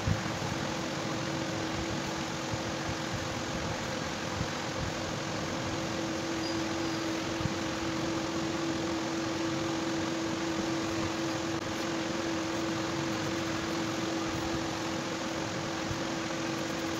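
Steady machine hum with an even hiss and a constant mid-pitched tone, like a motor running in the room, with a few faint ticks.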